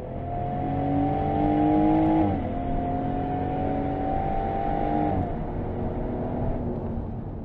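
Jaguar F-TYPE sports car engine accelerating under load. The pitch climbs steadily, drops sharply as the eight-speed Quickshift gearbox shifts up about two seconds in, then climbs again to a second upshift about five seconds in.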